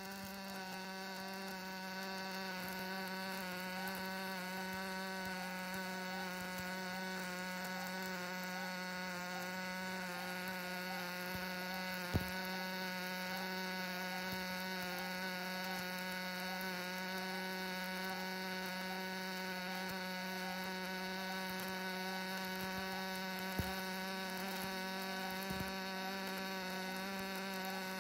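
Automatic MIG welding arc on a hydraulic cylinder piston rod, buzzing steadily and evenly as the CNC welder runs a circular seam. A sharp click about twelve seconds in and a couple of smaller ones later break the buzz.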